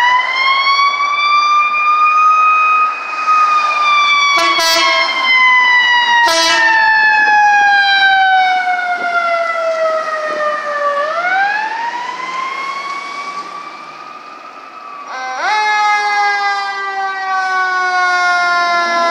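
Sirens of Los Angeles Fire Department emergency vehicles responding. A paramedic rescue ambulance's siren wails, rising and falling slowly, with two short horn blasts about four and a half and six seconds in. About fifteen seconds in, a fire engine's siren starts up with a quick rise and then falls slowly.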